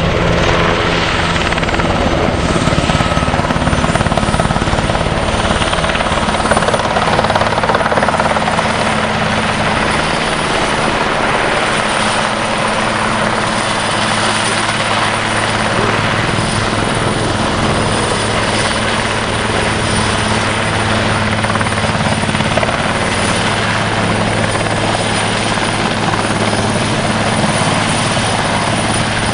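Twin-turbine Cougar military helicopter holding a low hover overhead: loud, steady rotor and turbine noise with a constant high whine.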